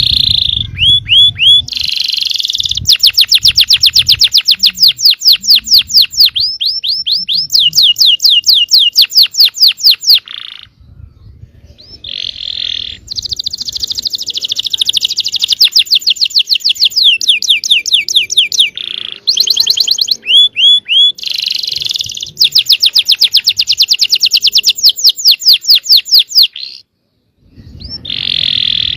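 A yellow canary singing loud, rapid trills of repeated sweeping notes, in long rolling phrases with short breaks about eleven seconds in and near the end.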